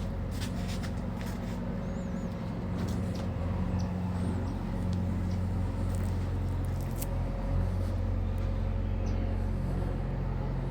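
Steady low hum and rumble, with a few faint, brief sparrow chirps high above it.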